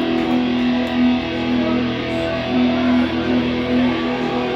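Electric guitar of a live metal band playing held, ringing notes that change about once a second.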